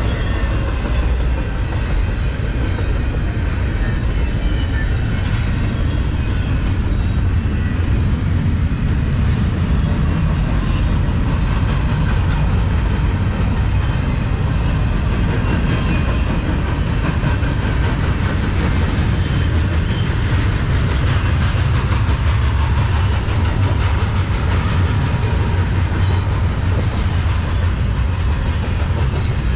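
Double-stack intermodal freight train's well cars rolling past: a steady low rumble of steel wheels on the rails.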